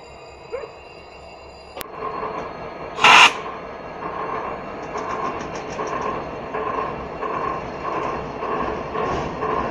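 A heavy freight train rolling past, its noise beating in a steady rhythm a bit under twice a second, with one short, loud hiss about three seconds in. It starts suddenly about two seconds in, after a quieter stretch.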